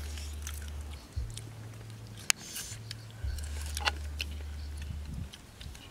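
Background music with a low bass line that changes note a few times. Over it come scattered crisp clicks of chewing and crunching on grilled fish, the sharpest a little over two seconds in.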